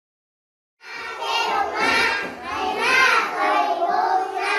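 Silence, then about a second in a group of children starts singing, their voices wavering in pitch and holding notes.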